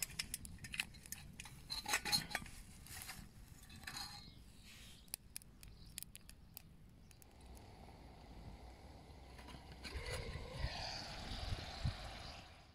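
Kindling catching in a stainless-steel wood-gas camp stove: sharp crackles and small metal clinks in the first few seconds. From about seven seconds in there is a steady hiss as the stove burns, with a few low knocks near the end as a metal cooking pot on it is handled.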